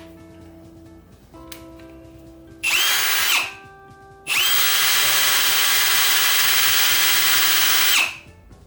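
Ryobi R18PD7 18V brushless hammer drill triggered twice: a short burst about three seconds in, then a longer run of about four seconds, its motor whine spinning up and winding down each time. Quiet background music underneath.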